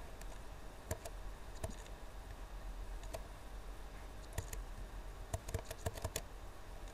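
Scattered clicks from a computer keyboard and mouse, single keystrokes and small quick runs of them, over a faint steady low hum.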